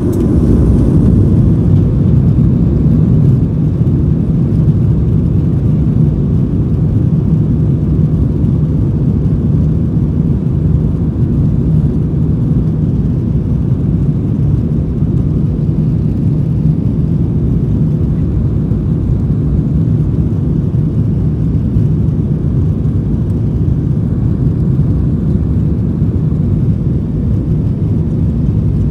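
Boeing 737-900ER's twin CFM56-7B27E turbofans heard from inside the cabin over the wing during the takeoff roll: the noise rises in the first second as thrust comes up, then holds as a steady, deep roar with a low rumble while the plane accelerates down the runway.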